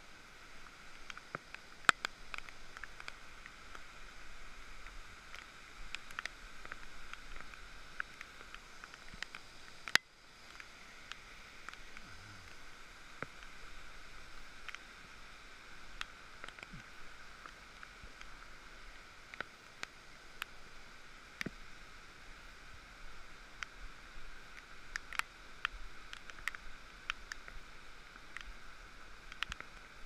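Quiet rainforest-canopy ambience: a steady, high, hiss-like drone, with scattered clicks and taps from footsteps and a hand on the metal suspension bridge and its cable. A sharp click stands out about two seconds in, and another near ten seconds, where the sound briefly drops away.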